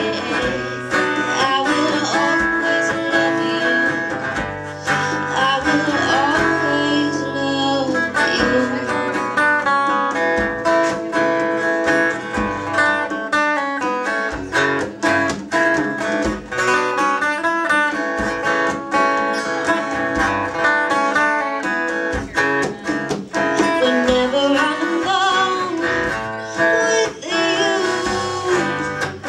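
A woman singing, accompanied by a strummed acoustic guitar.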